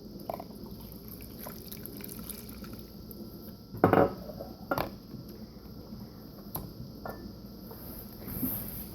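Warm water being poured into a cup. There are two sharp knocks of dishes about four and five seconds in, and a few lighter clicks.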